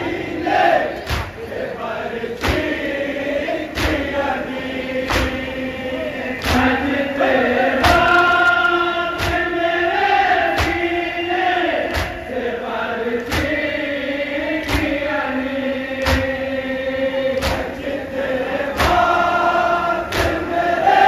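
A chorus chanting a noha, a Muharram lament, with the mourners' chest-beating (matam) landing together in a steady beat about every second and a half.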